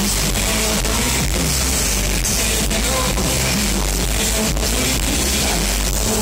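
Live band playing loud amplified music with drums and keyboards in a concert arena, picked up by a phone's microphone from the audience; the loudness stays steady throughout.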